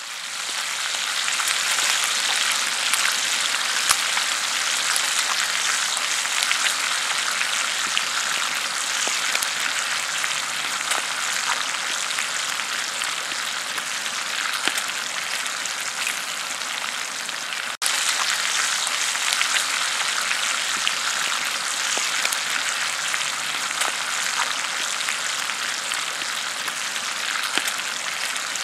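Bacon sizzling in a cast-iron skillet over a campfire: a steady, dense hiss with scattered small pops of spattering fat. It cuts out for an instant about two-thirds of the way through.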